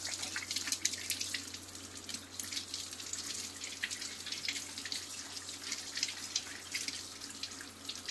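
Kitchen tap running onto peeled aloe vera gel held in the hands over a sink, the stream splashing and spattering irregularly as the gel is rubbed and rinsed to wash off its slimy coating.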